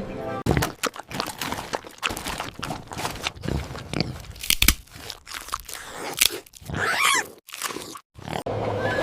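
A pig eating, with irregular, crisp crunches of food being chewed, and a short pitched call about seven seconds in.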